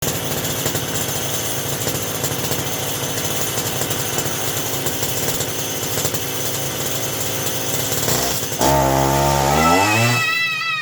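Two-stroke chainsaw engine on a homemade go-kart running with a rapid buzzing rattle. Near the end it gets louder and climbs in pitch as it revs up.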